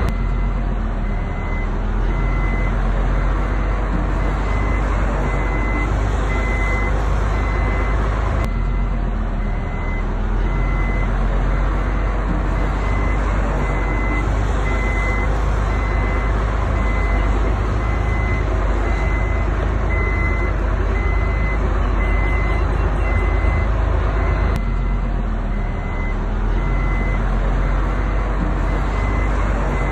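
Heavy diesel machinery running steadily, with a reversing alarm beeping at an even pace over it.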